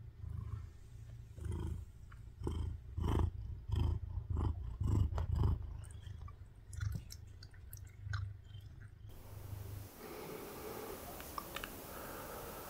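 A long-haired cat purring right against the microphone, a low purr that swells in rhythmic pulses with each breath, mixed with the scratchy rustle of fur brushing the phone. About nine seconds in it cuts to quiet room tone with a few small clicks.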